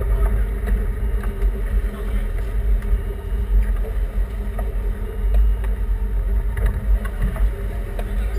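Sport-fishing boat's engine running steadily, with wind buffeting the microphone as a heavy, uneven low rumble.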